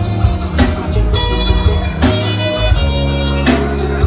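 Loud party music with a steady beat and heavy bass.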